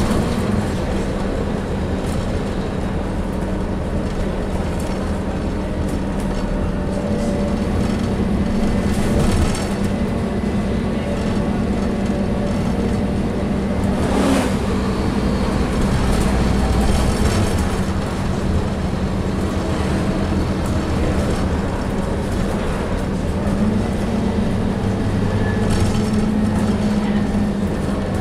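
Scania N230UD double-decker bus's five-cylinder diesel engine and drivetrain running as the bus drives along, heard from inside the upper deck, with the engine note rising and falling several times. A brief rattle or knock about fourteen seconds in.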